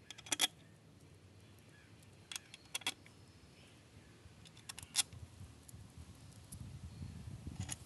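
Small steel bolts clicking and clinking, a few sharp clicks a second or two apart, as they are handled and set into the clutch cover of a Bajaj DTS-i motorcycle engine. A low rumbling noise rises near the end.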